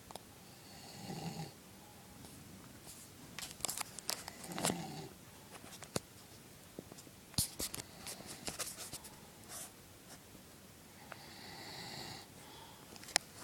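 A man snoring in his sleep: three drawn-out snores spaced unevenly a few seconds apart, with scattered faint clicks between them.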